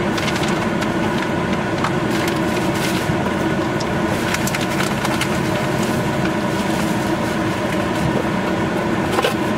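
Clear plastic bag crinkling and crackling as it is handled, over the steady hum of the car's air conditioning.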